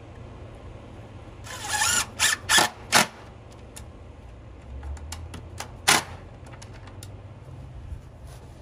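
DeWalt cordless drill driving screws into wood: one run of about half a second, then three quick bursts within the next second, and another short burst about six seconds in, with light clicks between.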